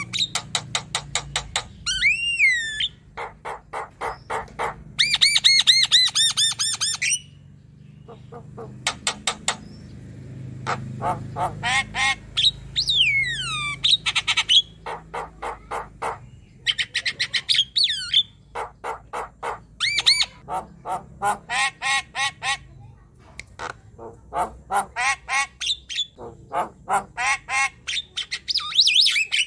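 Javan myna (jalak kebo) singing hard: long runs of rapid, repeated harsh notes broken by whistles that sweep up and down, with a couple of short pauses.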